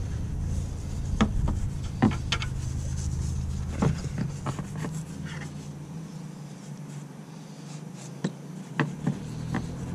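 Small paintbrush scrubbing and dabbing thick cleaner onto a car's exhaust tips, with light scratching and scattered clicks as the brush and handle knock the metal, over a low steady rumble that fades out about six seconds in and comes back near the end.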